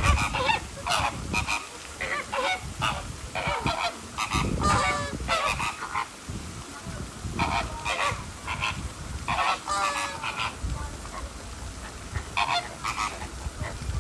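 A flock of flamingos honking: many short, goose-like calls, overlapping and coming in clusters, over a low rumble.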